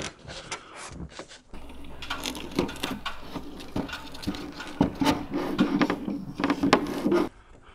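A PVC pipe being forced through a tight drilled hole in a wooden rim board, scraping and knocking against the wood in quick, irregular clicks and rubs.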